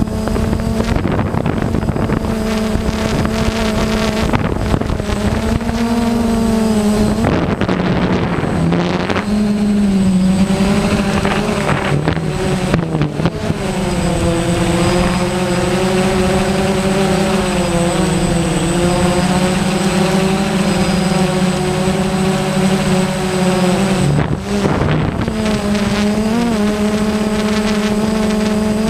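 Camera drone's electric motors and propellers whining steadily in flight, the pitch shifting as it manoeuvres, with short wavers about a quarter of the way in and again near the end.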